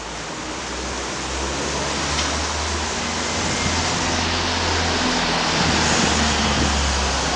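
A motor vehicle's engine and tyres on the street, growing steadily louder to a peak about six seconds in, with an uneven low rumble underneath.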